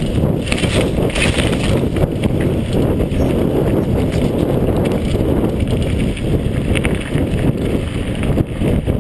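Mountain bike descending a dirt trail at speed: a steady low rush of wind buffeting the microphone and tyres rolling over the dirt, with scattered clicks and rattles from the bike going over bumps.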